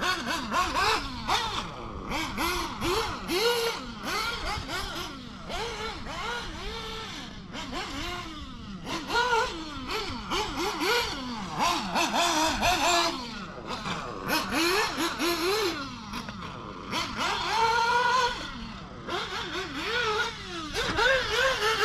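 Nitro RC buggy's Ninja B21 two-stroke glow engine running on its first run, revving up and dropping back over and over as the throttle is worked, its pitch rising and falling with each burst.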